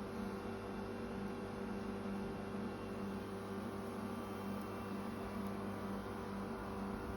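Steady low hum with several held tones, unchanging throughout.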